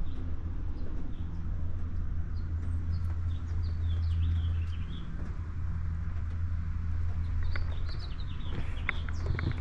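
Small birds chirping on and off over a steady low hum.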